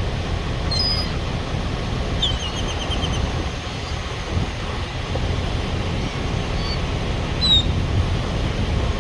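A small songbird chirping a few times, including a quick trill of repeated notes about two to three seconds in, over a steady low rumble.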